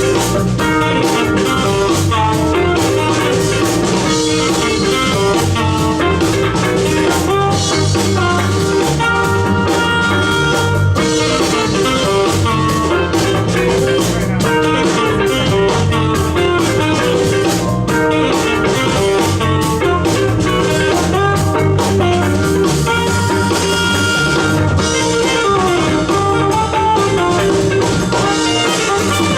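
A band playing a jazz-fusion cover with electric guitar, bass and drum kit.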